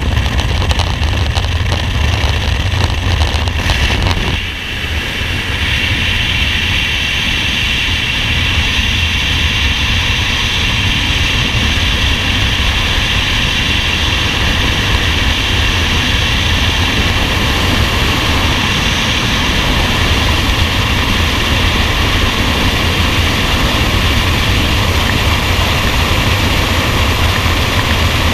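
Freefall wind rushing over a camera microphone, a loud, steady roar. For the first few seconds it is the jump plane's engine and slipstream at the open door, with a brief dip in level at the exit about four seconds in.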